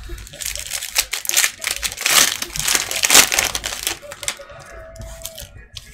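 Plastic wrappers of trading-card packs (Prizm cello packs) crinkling as they are handled, loudest from about two to three seconds in, then thinning out.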